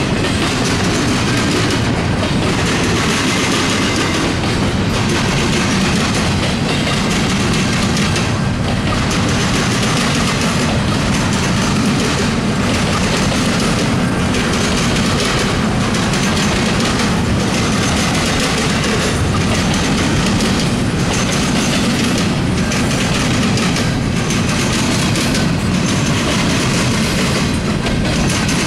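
Double-stack intermodal train's well cars rolling past close by: a loud, steady rumble of steel wheels on the rails, with the hiss above it dipping briefly every second or two.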